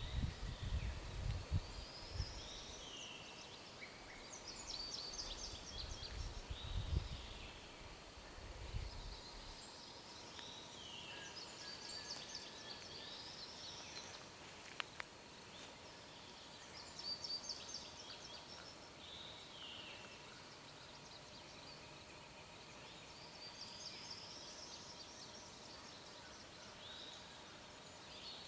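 Songbirds singing in a woodland, repeated phrases of high slurred whistles and quick trills. A low rumble on the microphone runs through the first nine seconds, and there is a single sharp click about fifteen seconds in.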